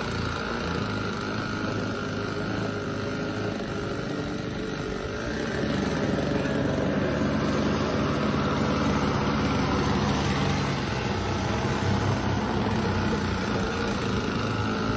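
Small single-stage snowblower running steadily as it clears snow, a little louder from about five seconds in.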